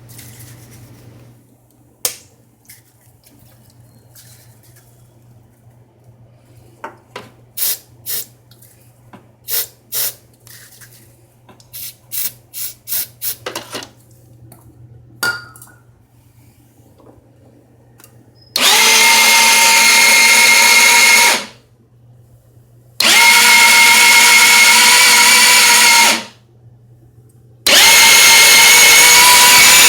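GY6 50cc scooter engine turned over by its electric starter in three steady whirring runs of about three seconds each, after a series of short blips. The engine never fires: it cranks but won't start.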